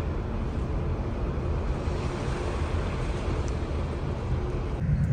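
Steady wind rush and low rumble on the deck of a moving ship. Near the end it cuts to a louder, deeper rumble.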